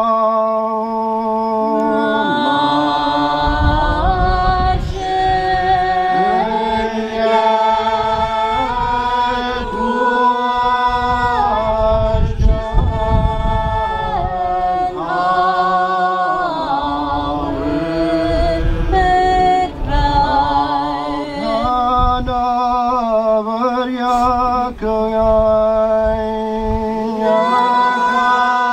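Congregation singing a psalm in Gaelic unaccompanied, long drawn-out notes sliding slowly from one pitch to the next.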